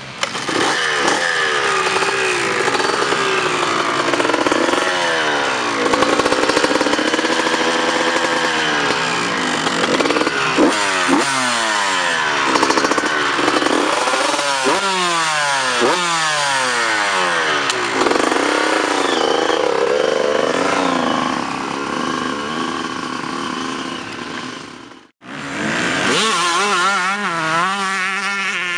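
Honda CR125 two-stroke motocross engines with full Pro Circuit exhausts, revved hard again and again, the pitch shooting up and falling back in quick sweeps. After a sudden break near the end, an engine is heard again, its pitch wavering up and down.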